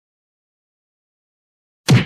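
Dead silence, then one short whack near the end.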